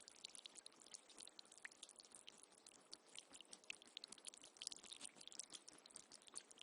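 Faint trickling and dripping water, a dense, even patter of tiny splashes.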